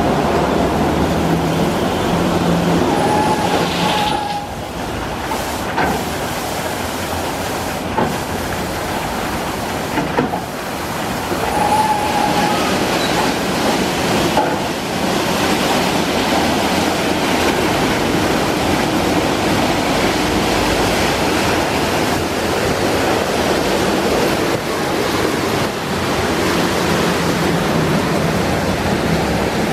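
Istobal M'Start rollover car wash running: rotating brushes scrubbing a car's body under water spray, a steady rush of brush and water noise with a low motor hum.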